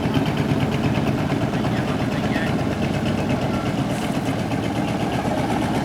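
An engine running steadily at an even speed, with a rapid regular pulse.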